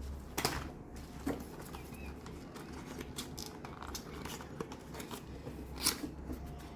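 Faint rustling and light taps of paper leaflets and small cardboard packaging being handled, with a few sharper clicks, over a steady low hum.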